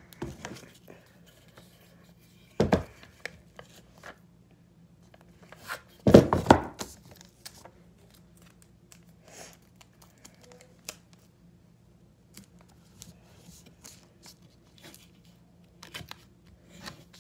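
Clear sticky tape pulled from a desk dispenser and torn off, with paper rustling and crinkling as it is pressed down around a wooden block. There are two louder rips, a short one about three seconds in and a longer one about six seconds in, among small taps and rustles.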